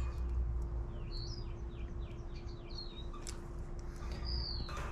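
Small birds chirping in the background: a few short rising-and-falling chirps, a quick run of down-slurred notes, and one longer falling chirp near the end. A faint steady hum runs underneath, with a couple of light clicks about three seconds in.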